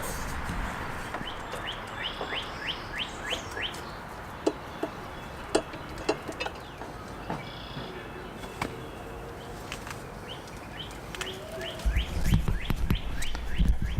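A bird chirping in quick runs of short, downward-sliding high notes, several a second, repeated a few times. Scattered sharp clicks and knocks sound between the runs, and a low rumble comes near the end.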